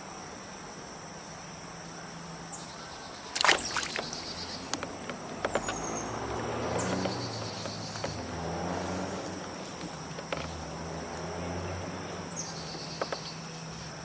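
A steady, high-pitched chorus of insects buzzing in the swamp, with a few short falling chirps. About three and a half seconds in there is a sharp knock, followed by a low hum.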